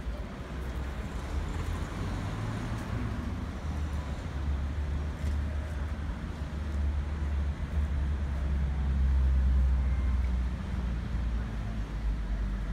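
Street traffic: vehicles passing, with a steady low rumble that swells to its loudest about nine seconds in.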